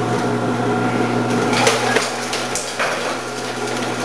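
Omcan HLC 300 vegetable processor running with a steady hum as its slicing disc cuts cucumbers fed down the chute, set for 2 mm slices, with a few sharp knocks and clatters about two seconds in.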